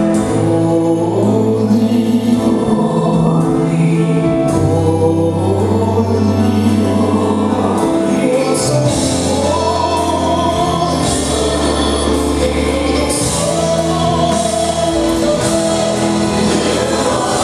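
Gospel music: a choir singing over an accompaniment of long-held bass notes that change every few seconds.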